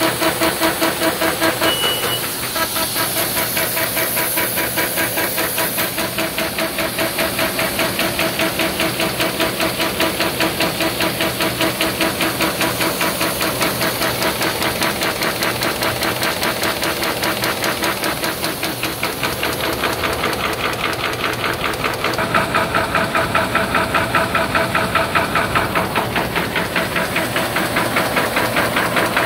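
Horizon AFC-566FG automatic paper folding machine running, with a fast, even mechanical clatter as sheets feed through its fold plates and rollers. It gets slightly louder about three-quarters of the way through.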